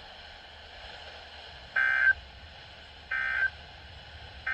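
Emergency Alert System digital data bursts: three short, identical bursts of warbling two-tone data, about a second and a third apart, the end-of-message signal that closes a weather radio alert. The last burst starts just before the end. A faint hiss of radio reception lies underneath.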